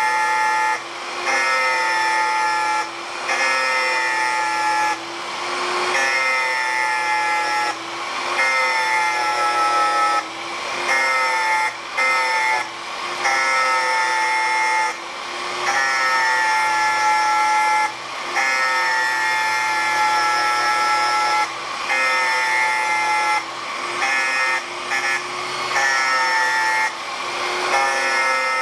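Small 600-watt angle grinder with a thin 1 mm cut-off disc, its spinning edge scraping hardened lathe bed ways in short passes. A whine with a grinding hiss sinks a little in pitch under each pass and breaks off briefly every one to two seconds. The grinder runs well below full speed.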